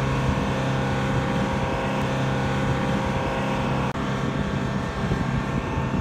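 A running engine gives a steady drone: a low hum with several steady tones over a rough rumble, cut off for an instant about four seconds in.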